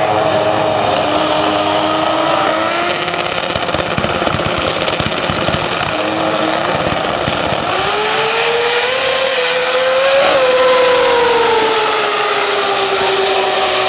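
Drag racing car engine running loudly, its pitch climbing to a peak about ten seconds in and then falling away slowly.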